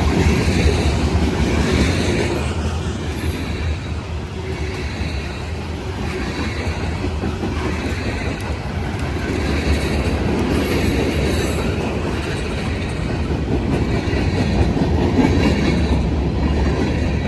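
CSX freight train rolling past, a steady rumble of its cars' wheels on the rails.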